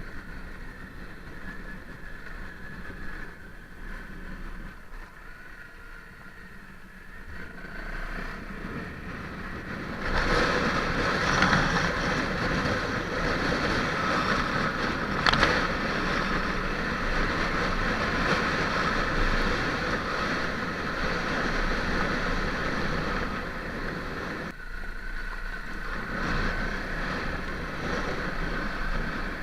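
Honda CRF250L's single-cylinder four-stroke engine running under way off-road, mixed with wind noise on the microphone. It gets louder about a third of the way in and dips briefly near the end.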